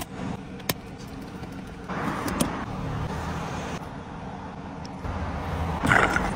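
Car noise heard from inside a car, steady and low throughout and louder in two stretches. A couple of sharp clicks sound within the first second.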